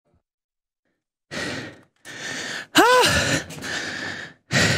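A man breathing out hard in a run of loud, breathy huffs and gasps, starting after about a second of silence, with one short voiced 'oh' that rises and falls in pitch about halfway through, as he laughs.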